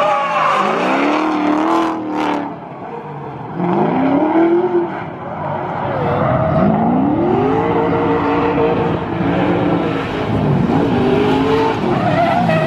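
Cars drifting, engines revving hard: the pitch climbs and drops back several times as the throttle is worked through the slides, over the hiss and squeal of tyres sliding on tarmac.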